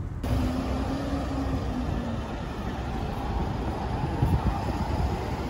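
Street traffic: the steady noise of cars moving on a city road, with one engine's tone heard falling slightly during the first couple of seconds.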